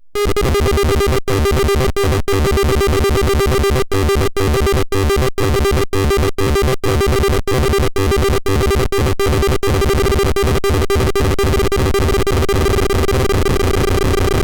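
Electronic synthesizer music with a held tone over a pulsing low beat. Through the first ten seconds it cuts out to silence many times, for a split second each time.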